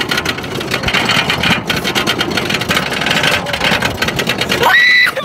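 Wooden roller coaster train rattling fast along its track, with wind buffeting the phone's microphone. A girl screams near the end.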